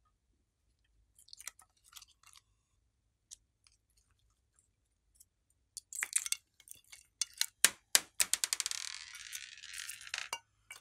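Sticky slime crackling and popping as it pulls away from a plastic mold, with only a few faint clicks at first. More than halfway through it turns into a dense run of sharp crackles and snaps.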